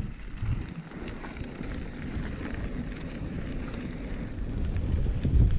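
Wind rushing over an action camera's microphone as a mountain bike speeds down a gravel trail, with the tyres rumbling over the loose surface; the rush grows louder toward the end as speed builds.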